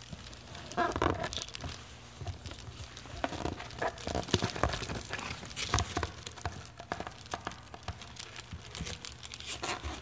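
Handling noise as a rugged plastic iPad shell is pushed into a ballistic nylon carry case: rustling and scraping of the nylon with irregular clicks and knocks.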